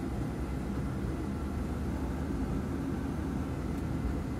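Boeing 777 flight simulator's takeoff-roll sound at takeoff thrust: a steady low rumble of engines and runway roll, with a faint steady whine above it.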